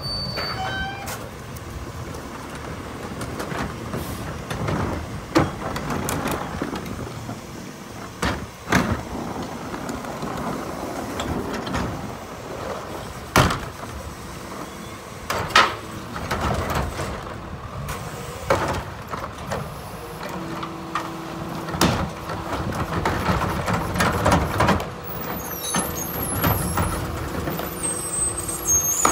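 Rear-loader garbage truck running at idle while wheeled plastic carts are tipped into its hopper, with several sharp bangs as the carts knock against the lifter and hopper. A steady hum joins about two-thirds of the way through.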